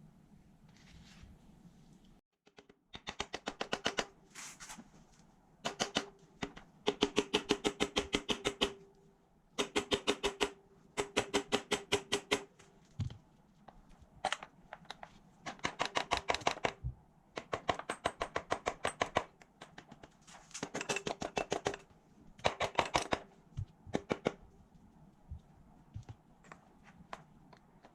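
Ratchet wrench clicking in quick, even runs of a second or two, about eight clicks a second, with short pauses between, as bolts are turned.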